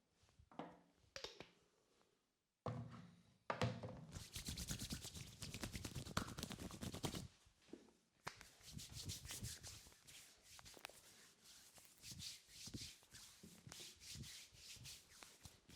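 Hands working over a head and hair in a massage: fast, scratchy rubbing and patting strokes, loudest from about three and a half to seven and a half seconds in.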